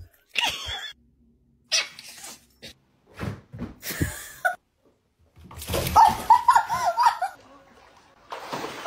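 Pet animal calls: several short, separate cries, the longest a quavering run of quick rising-and-falling notes about six seconds in.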